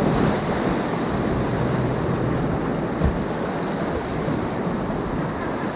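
Whitewater rapids rushing steadily around a kayak, with a brief low thump about halfway through.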